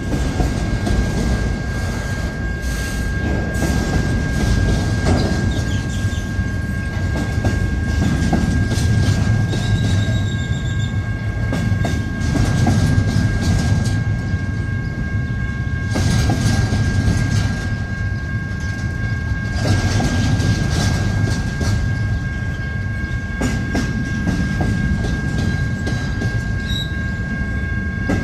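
CP intermodal freight train rolling past: a steady low rumble, with the wheels clicking over the rail joints.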